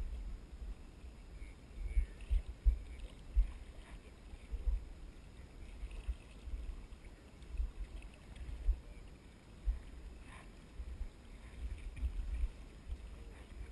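Irregular low bumps and buffeting on a GoPro camera's microphone, over a faint steady rush of a shallow river. One sharp click about ten seconds in.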